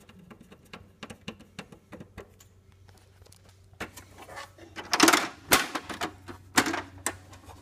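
Small clicks as a screwdriver turns a screw into a copier's document feeder frame, then a few sharp, louder plastic clacks about five to seven seconds in as the feeder cover is handled by hand.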